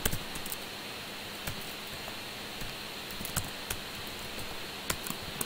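Computer keyboard typing: scattered, irregular keystrokes over a steady hiss.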